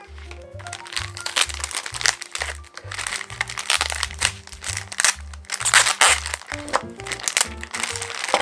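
Clear plastic packaging bags crinkling and crackling as hands open and handle them, over background music with a steady beat.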